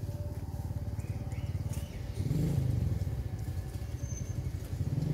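A small engine, like a motorcycle's, running steadily with a low pulsing drone, revving up briefly about two seconds in.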